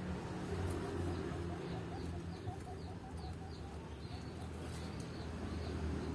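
Birds calling: a quick series of short, repeated notes, a few a second, over a steady low hum.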